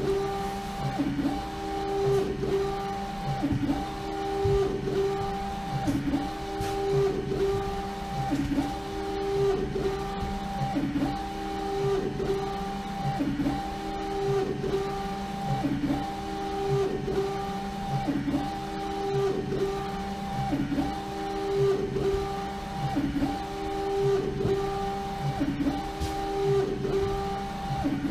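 UV inkjet printer (LogoJet UVx60XL) printing a full wrap on a bottle turning in its rotary jig: the print-head carriage sweeps back and forth about once a second, a steady whine that breaks off and resumes at each turnaround.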